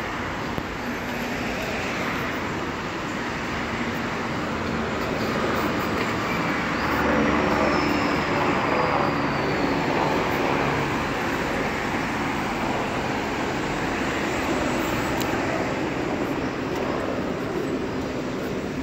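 Steady road traffic: the running and tyre noise of passing cars and vans, loudest about halfway through.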